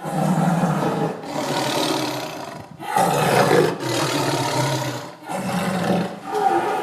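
A large animal roaring, with about five or six rough roars in a row, each about a second long.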